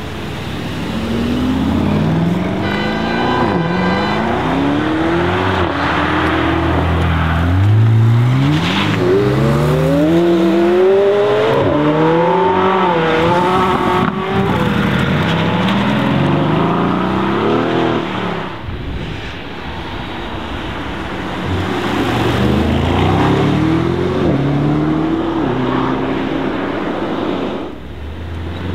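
Sports cars, chiefly the Mercedes-AMG SL63 with its 4.0-litre twin-turbo V8, accelerating hard in several separate passes: the engine note climbs in pitch and drops back at each upshift, over and over.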